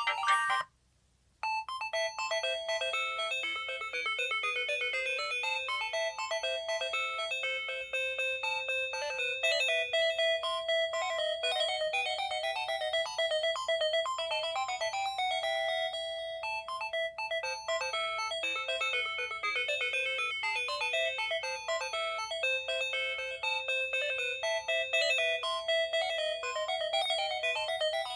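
Polyphonic synthesized ringtone melody: an LG C1100 ringtone in Yamaha SMAF .mmf format, played on a Samsung SGH-P910 phone. Bright chiming notes with no bass. One tune ends abruptly, and after a short pause the next starts about a second and a half in.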